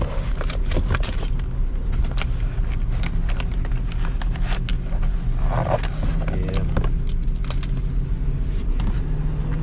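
Car engine idling steadily, with scattered clicks and light rattles of objects being handled.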